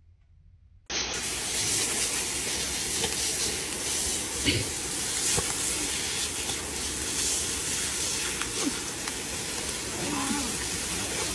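Garden hose spray nozzle jetting water in a steady hiss that starts suddenly about a second in.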